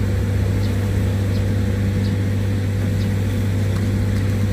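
Steady low hum of machinery running, like an engine at a constant speed, with a few faint ticks.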